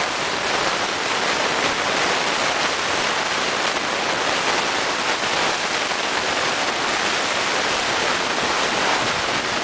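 Steady rushing water: an even, unbroken wash of noise.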